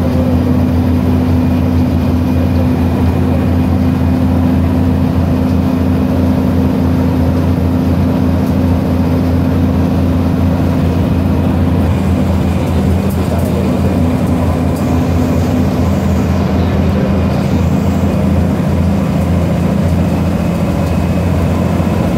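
Bus engine and road noise heard inside the cabin while cruising on a highway: a steady low hum with a faint shift in the engine note about halfway through.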